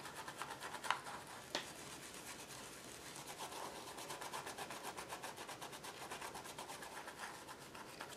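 Faint, rapid rubbing of a small applicator on paper as black ink is worked through a cat-head stencil onto a journal page, with a couple of sharp taps in the first two seconds.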